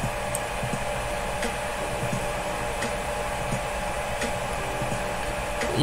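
Steady fan-like hiss with a low hum, with a few faint clicks.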